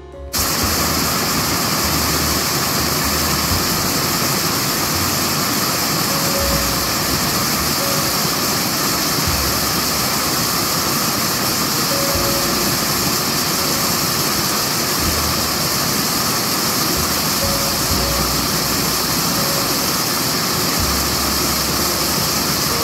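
Small waterfall pouring over a rock ledge onto stones: a steady, loud rush of falling water, with occasional low rumbles.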